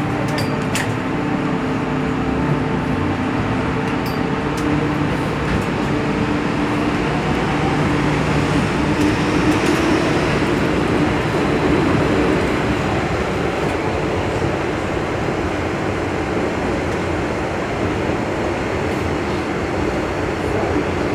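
MTR M-Train metro car running through a tunnel, heard from inside: a steady rumble of wheels on rail, with a low motor hum over it that fades out about halfway through.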